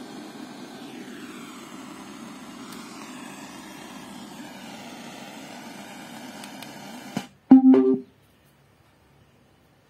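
Compact Bluetooth soundbar playing music quietly. About seven seconds in, its power switch clicks and a short, loud shutdown tone sounds. The sound then cuts off to silence as the speaker switches off.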